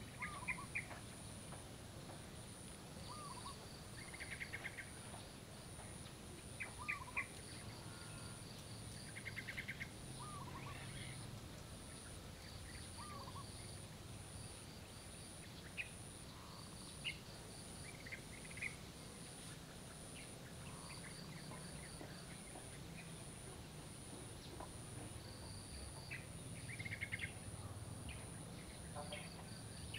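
Faint bird and insect ambience: birds chirping, with short curved calls every few seconds, over a steady high-pitched pulsing insect trill and a low hum.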